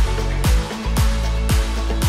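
Upbeat electronic dance background music with a steady kick drum about two beats a second over held bass notes.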